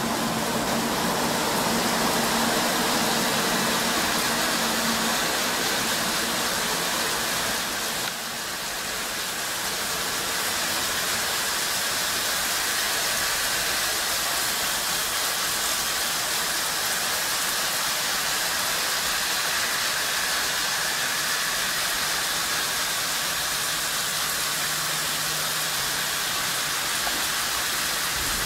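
Steady hiss of trackside snow-melting sprinklers spraying water over the Shinkansen tracks. A Tokaido Shinkansen train runs slowly past, its motor hum a steady low tone for the first few seconds. The sound dips briefly about eight seconds in.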